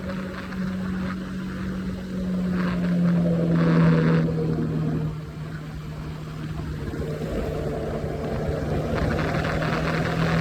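Triumph Scrambler 400X's single-cylinder engine running at highway speed. Its note sags a little in pitch partway through and climbs again near the end.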